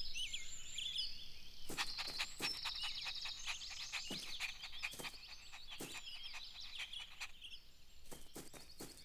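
Backyard ambience of small birds chirping and twittering, with a scatter of light, sharp taps and ticks from about two seconds in.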